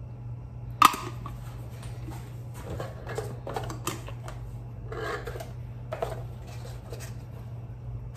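Metal candle tin clinking sharply about a second in, followed by softer knocks and rustles as candles are set into cardboard gift boxes. A steady low hum runs underneath.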